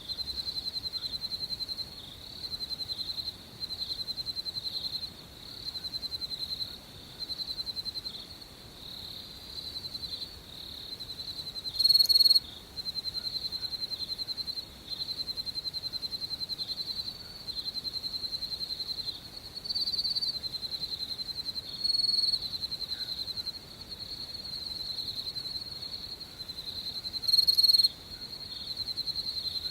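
Crickets chirping: rapid pulsed trills at one high pitch, in phrases of about a second with short breaks. A few louder, sharper chirps stand out, the loudest about twelve seconds in and again near the end.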